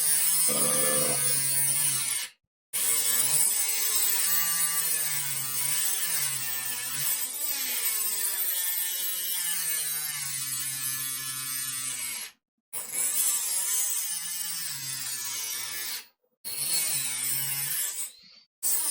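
Battery-powered WORX MakerX rotary tool running and cutting, its whine wavering in pitch as the bit bites and eases off. The sound is broken by four short, completely silent gaps.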